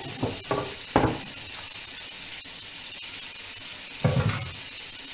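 Octopus and peppers sizzling steadily in a covered frying pan on a gas hob. A sharp knock comes about a second in, and a heavier wooden thump just after four seconds as a wooden cutting board is handled.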